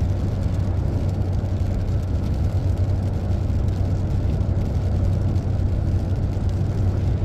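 Steady low drone inside a vehicle's cabin at highway speed: engine and tyre noise on a wet road.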